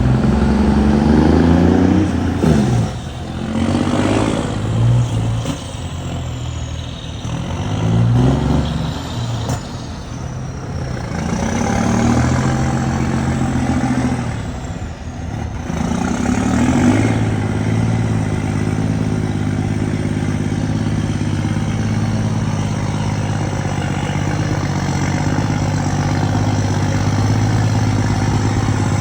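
Volvo FH truck diesel engine rumbling through an aftermarket exhaust, revved up and let fall back about five times, then settling into a steady run for the last ten seconds or so.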